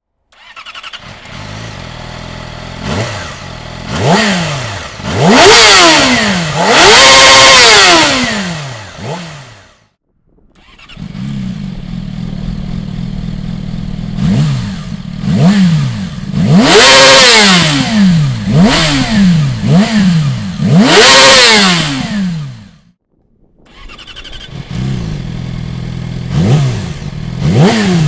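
Yamaha YZF-R6's 599 cc inline-four engine idling and being revved hard over and over through its exhaust, each rev climbing quickly and dropping back to idle. It comes in three separate takes, cut off abruptly by short silences about ten seconds in and again a little over twenty seconds in.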